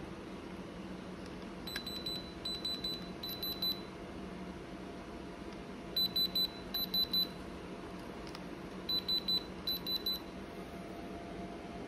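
Electronic beeper giving quick, high beeps in short clusters, heard in three bursts a few seconds apart, over a steady low hum.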